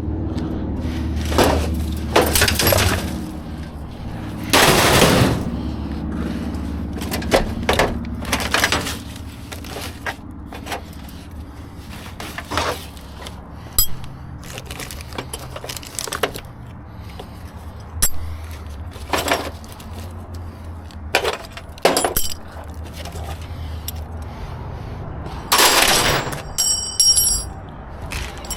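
Scrap metal pieces clanking and scraping as they are rummaged through and pulled from a dumpster: many separate irregular knocks, some ringing briefly near the end, over a steady low hum.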